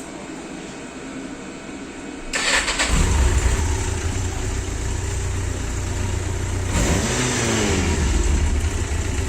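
A Yamaha Diversion 900's air-cooled inline-four engine is started about two and a half seconds in, catches and runs steadily, with a brief rise in revs about seven seconds in. This is the test start after the cam chain tensioner was reset, to hear whether the engine knock is cured.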